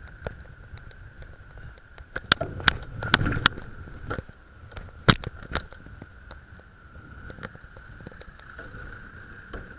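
Bicycle-mounted action camera jolting over rough pavement and kerb edges: a low rumble of road and wind with a faint steady high tone, broken by a quick run of sharp knocks and rattles about two to three and a half seconds in and another sharp knock about five seconds in.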